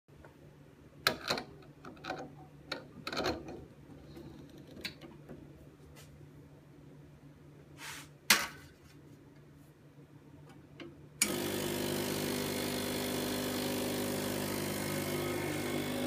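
A few clicks and knocks of glass and metal, the loudest about eight seconds in as a shot glass is set on the stainless drip tray. About eleven seconds in, the Bezzera BZ13 espresso machine's vibration pump switches on suddenly and runs with a steady loud buzz as the shot starts to extract.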